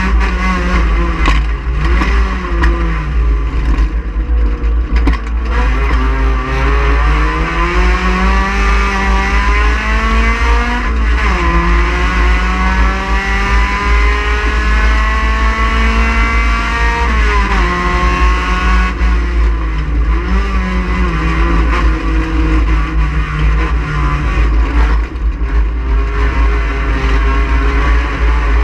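Race car engine under load, revving up and easing off through corners. Two long climbs in pitch end in sharp drops about eleven and seventeen seconds in, as the car shifts up. A heavy low rumble runs underneath.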